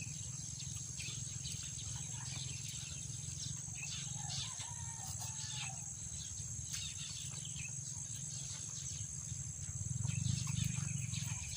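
Outdoor ambience: a steady high insect drone from crickets over a low steady hum, with scattered small clicks.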